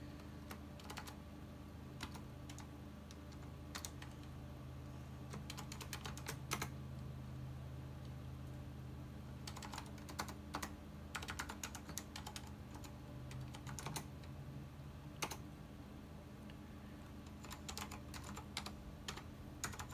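Typing on a computer keyboard: short bursts of keystrokes with pauses between them, over a steady low hum.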